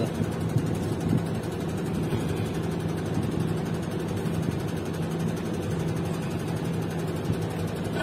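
Diesel engine of a Putzmeister 49-5 truck-mounted concrete pump running steadily at idle, a low even hum that holds the same pitch.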